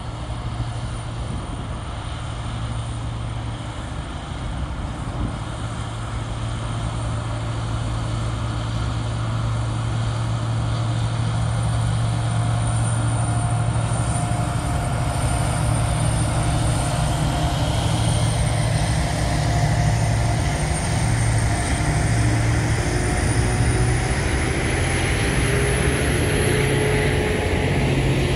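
Two TasRail TR class diesel-electric locomotives working hard up a grade with a heavy container train: a steady low engine drone, followed by the rumble of the wagons rolling past, getting louder over time.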